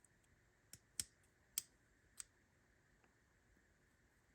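Metal parts of a Ford Model T ignition and headlight switch clicking lightly as they are handled and fitted together: four short clicks over about a second and a half.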